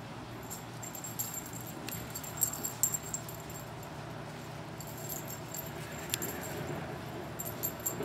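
Light metallic jingling that comes and goes, with a few sharp clinks, the loudest a little after two seconds in and again around six seconds.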